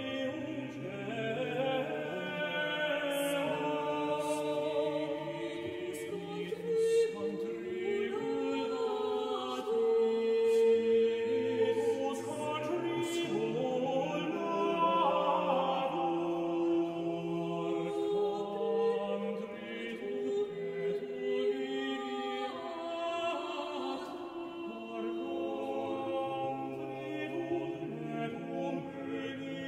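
Background choral music: voices singing slow, held notes in several parts, in the manner of a chant.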